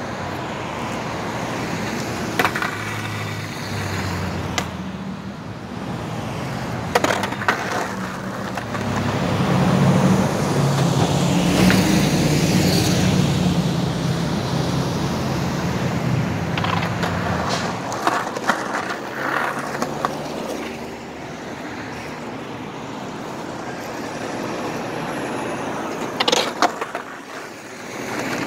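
Road traffic passing: cars and trucks go by, with a heavier engine rumble swelling from about eight seconds in and fading after about seventeen. A skateboard clacks on the concrete several times, with the sharpest pair of clacks near the end.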